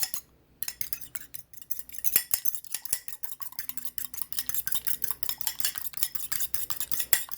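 A utensil beating an egg in a bowl of applesauce and vanilla, in quick, rhythmic clicking strokes against the bowl starting about half a second in.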